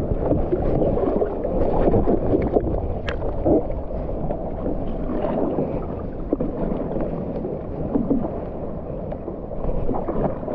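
Ocean water sloshing and splashing against a stand-up paddleboard as it rides the swell, with a low wind rumble on the microphone.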